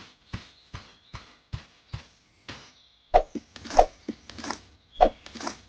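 Shovel digging in sand: a run of light, evenly spaced strikes, then louder scoops and scrapes from about three seconds in.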